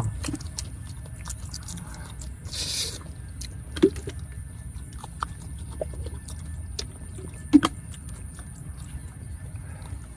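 Close-up mukbang eating sounds: chewing, small clicks of a fork and spoon in the food, and two sharper clicks near 4 s and 7.5 s. There is a short hiss about two and a half seconds in, over a steady low rumble.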